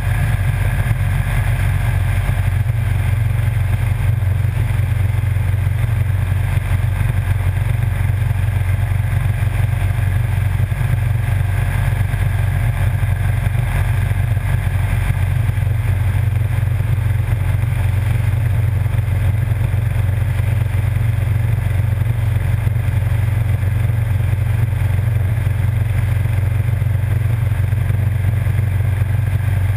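Motorcycle cruising at a steady speed: a constant low engine drone mixed with wind and road noise, with no change in revs.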